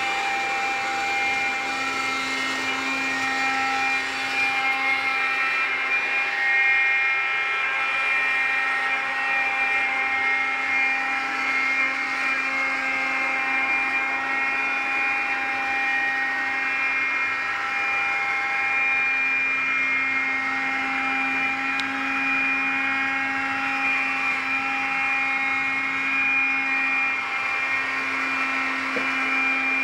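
iRobot Scooba floor-washing robot running on tile, its motors making a steady whine of several held tones over a hum.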